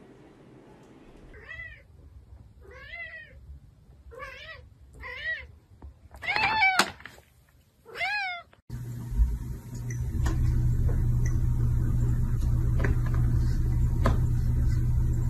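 A cat meowing about six times over the first eight seconds, each call rising and then falling in pitch. From about nine seconds in, a loud steady low hum with scattered clicks takes over.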